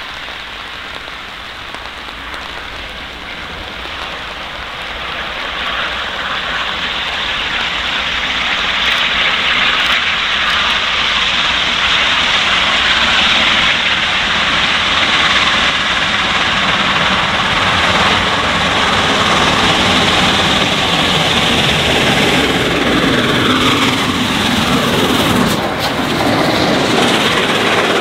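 Three-cylinder A1 Pacific steam locomotive 60163 Tornado accelerating hard with a heavy train, its exhaust growing steadily louder as it approaches, then the train rushing past near the end with falling pitch.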